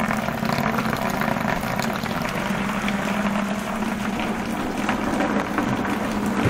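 Water streaming and splashing steadily down from a leak in the ceiling, with a low steady hum underneath.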